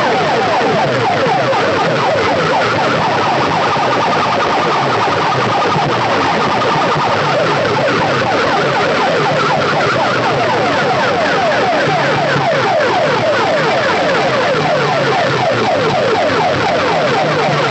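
Banks of horn loudspeakers blasting a loud, siren-like effect: rapid falling sweeps repeating several times a second over a low pulsing bass, at a steady, unbroken level.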